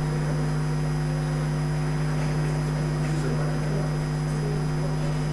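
Steady low electrical hum on the chamber's sound system, one unchanging tone with overtones, over faint room noise.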